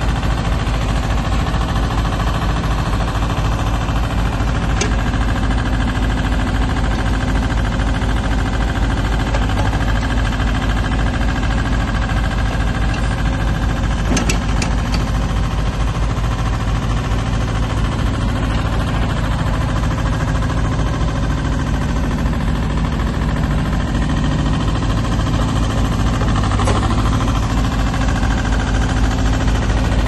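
Diesel engine of a Case 648 compact backhoe running steadily with a fast low chugging while the backhoe arm is worked, with a few short clicks partway through.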